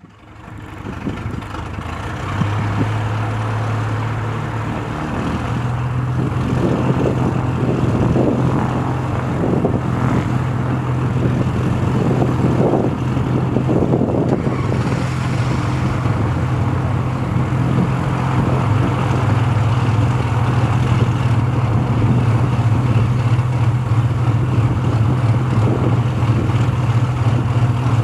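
Beechcraft B60 Duke's turbocharged six-cylinder Lycoming piston engine starting and running with its propeller turning at low power. It is a steady drone that steps up in pitch about five seconds in and then holds.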